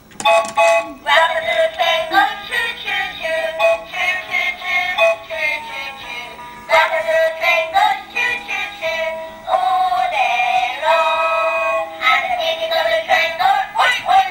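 Tinny electronic song with synthetic-sounding singing from a toy's sound chip and small speaker, cut off sharply at the top like a cheap toy recording. It is the Peppa Pig Grandpa Pig's train toy playing its tune, in several phrases with short breaks.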